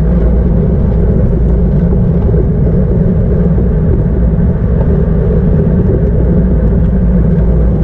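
Steady loud rumble of wind and road noise on the microphone of a camera riding on a road bike at racing speed.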